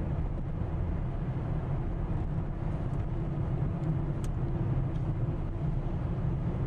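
Steady low rumble inside the cabin of a BMW X5 xDrive30d creeping up a slope on a rough off-road track, with a few faint ticks now and then.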